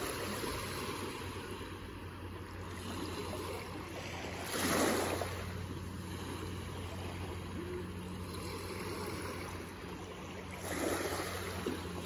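Small waves washing in over a sandy beach at the water's edge, with two louder surges of breaking wash, about five seconds in and again near the end.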